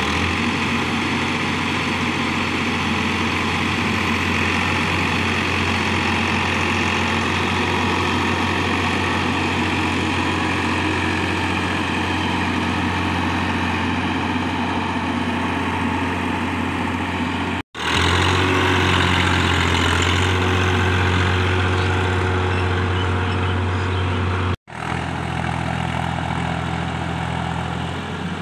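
Massey Ferguson diesel tractor engines running steadily in deep mud: a loud, even drone with a strong low hum. It drops out abruptly twice, for a moment each time, after about 18 and 25 seconds.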